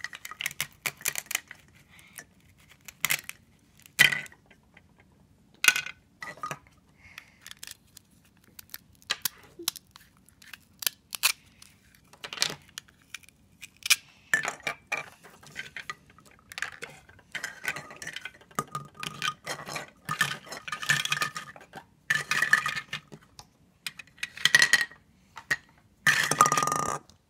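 Hard plastic toy fruit pieces clacking and tapping against each other, the toy knife and the table, in many separate knocks. Between them come several short rasps as the hook-and-loop halves of the toy fruit are pulled apart and pressed together.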